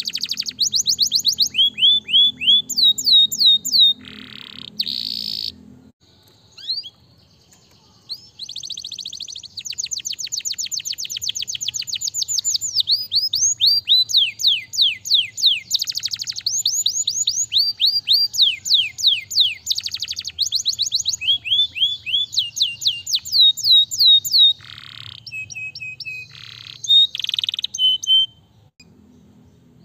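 Domestic canary singing in long, fast trills of repeated downward-sweeping notes. The speed and pitch change from phrase to phrase, with a short pause about six seconds in.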